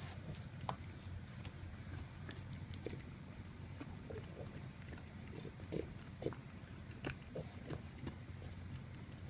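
Boxer dog gnawing on a bully stick: irregular wet chewing clicks and smacks from its mouth.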